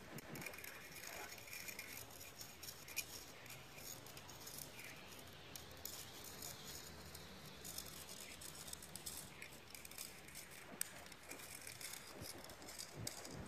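Faint, scattered scratching and small ticking taps of a long bamboo stick drawn through wet paint on a canvas as letters are scratched in.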